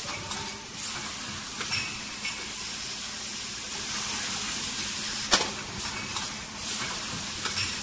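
Chain-type automatic bottle screen printing machine running: a steady hiss over a low hum, with a few sharp mechanical clacks, the loudest a little past five seconds in.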